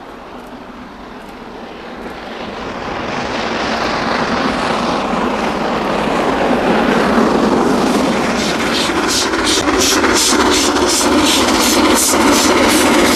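Steam locomotive hauling a passenger train towards the listener, its sound building from fairly quiet to loud. A rapid, even rhythm of sharp beats comes in about two-thirds of the way through.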